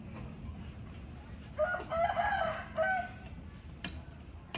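An animal call: one drawn-out pitched call of several linked segments, about a second and a half long, starting about a second and a half in. A single sharp click follows near the end.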